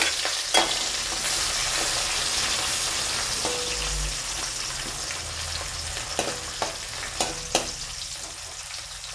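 Chopped onions and curry leaves sizzling in hot oil in an aluminium kadai as they are stirred with a steel ladle. The ladle clinks sharply against the pan a few times, mostly in the second half, and the sizzle slowly dies down as the onions settle into frying.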